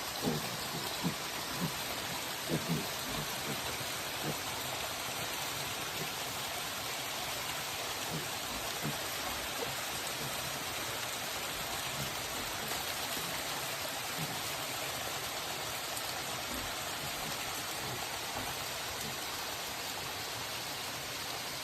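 Steady rain falling, an even hiss throughout, with a few short low-pitched sounds in the first three seconds.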